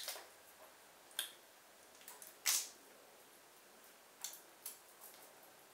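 Eating sounds: chewing with about five scattered wet mouth clicks and smacks, the loudest about two and a half seconds in.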